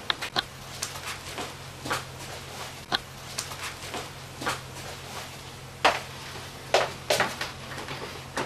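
Irregular sharp clicks and knocks, the loudest a little before and after the seven-second mark, over a steady low hum that comes in just after the start, with the sound of a small room.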